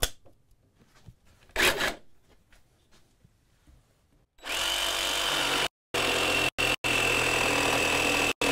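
A sharp click as the blade is locked into the jigsaw's tool-free blade clamp, then about four seconds in a DeWalt cordless jigsaw starts and cuts through a wooden board with a Diablo fine-finish wood blade: a steady high-pitched whine over the rasp of the cut, stopping briefly several times.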